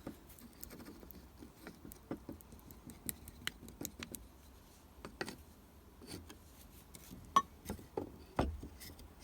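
Scattered light taps and clicks of small wooden pieces and a glue container being handled while a small wooden cross is glued together, with a sharper knock a little after seven seconds in and a dull thud about a second later.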